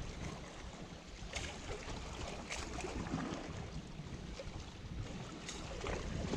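Steady seaside wind and water noise, with a few faint clicks.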